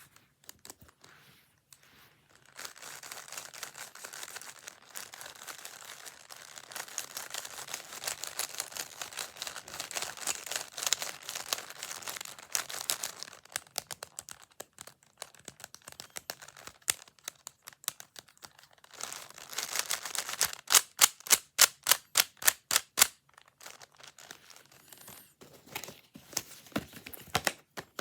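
Plastic Rubik's-type puzzle cubes being handled and twisted, their turning layers giving dense clicking and rattling. About twenty seconds in there is a run of sharp, evenly spaced clicks, several a second.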